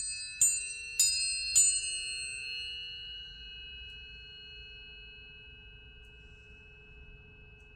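Planetary tuning forks struck three times about half a second apart, each a bright metallic tap. Several pure tones then ring on together and slowly fade away.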